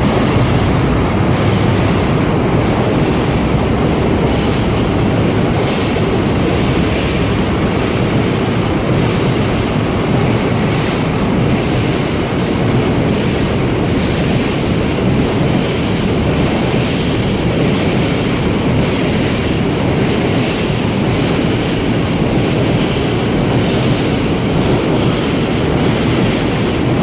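A freight train passing. The Class 66 diesel locomotive's engine hum is heard in the first few seconds, then a long rake of wagons rolls by, its wheels clattering rhythmically over the rail joints.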